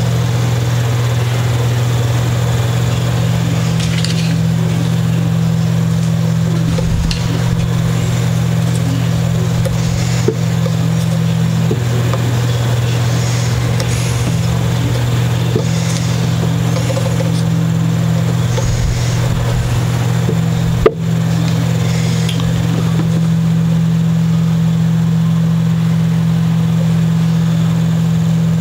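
A steady low machine hum with faint scattered handling ticks, and one sharp click about two-thirds of the way through.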